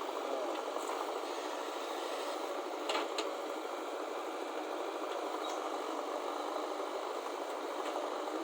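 Diesel engine of a backhoe loader or tractor running steadily, with a couple of short clicks about three seconds in.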